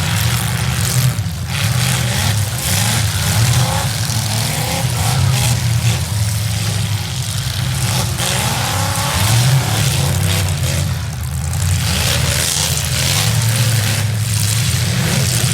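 Several V8 demolition derby car engines running hard and revving, their pitch rising and falling again and again over a steady low drone.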